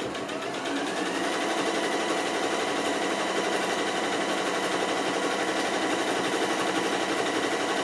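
Janome Skyline computerised sewing machine stitching, winding up to speed over the first second and then running steadily with a fast, even needle rhythm.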